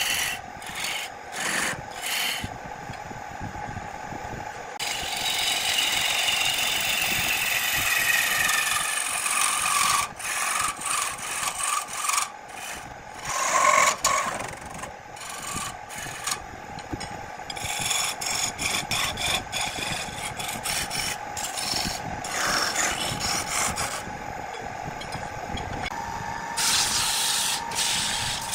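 Wood lathe turning a wooden blank while a hand-held gouge cuts into it: a rough scraping hiss that swells and drops as the tool bites and lifts, over a faint steady hum from the lathe.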